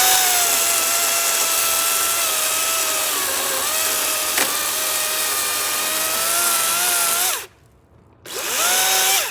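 Battery-powered electric chainsaw cutting a log: its motor whine spins up, dips in pitch under load partway through the cut, and stops suddenly about seven and a half seconds in. A single sharp tick comes midway, and the saw revs up again for a short burst near the end.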